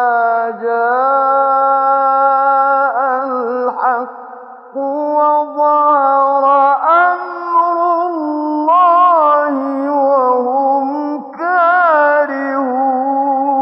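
A man's voice reciting the Quran in the melodic tajwid style: long, drawn-out ornamented notes that waver in pitch, broken by short pauses for breath.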